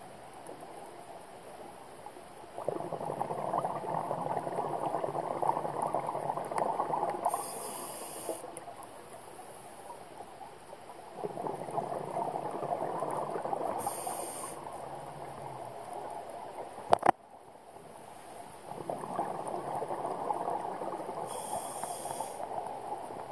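Scuba diver breathing through a regulator underwater: three long bubbling rushes of exhaled air, each with a short high hiss from the regulator. One sharp click about 17 seconds in.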